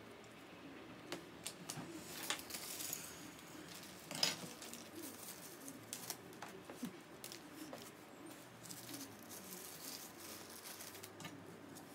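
Faint clicks, taps and rustles of small parts being handled during reassembly of a DJI Mavic Pro drone, with a longer rustle about two seconds in and the loudest knock about four seconds in.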